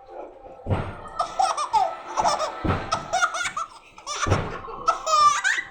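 Small baby laughing: several bouts of high-pitched giggling and belly laughs with short breaths between them, ending in quick squeals.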